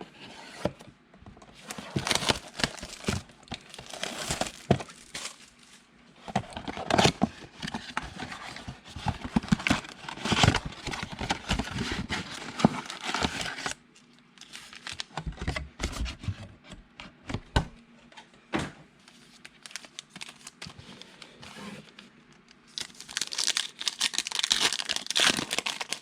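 Trading-card mega box and its packs being torn open, with the wrapping crinkling and tearing. Sparser taps and rustles of cards being handled come in the middle, and the crinkling grows louder again near the end.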